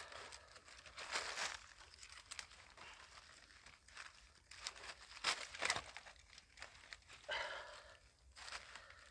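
Dry sticks clicking and snapping and green leaves rustling as they are handled and pushed into a pile of firewood, in irregular crackles with the sharpest snaps about five and a half seconds in.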